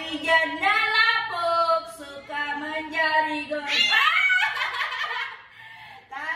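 Angry wet cat yowling in a run of long, drawn-out wails while it is held and bathed: a cat protesting the bath.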